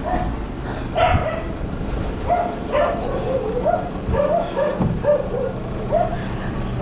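A dog barking repeatedly in short yapping calls, roughly one or two a second, over a low rumbling background.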